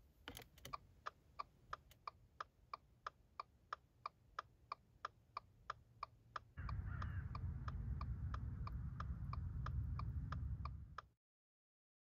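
Car hazard lights switched on with a click of the dashboard button, then the hazard flasher ticking evenly, about three ticks a second. About six and a half seconds in, a louder low steady rumble joins under the ticking, and both cut off suddenly near the end.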